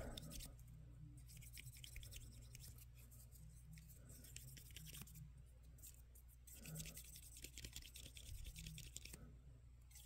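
Faint scrubbing and scratching inside the hollow plastic calf of a GI Joe muscle-body figure as it is cleaned out with alcohol, in light irregular strokes that grow a little louder past the middle.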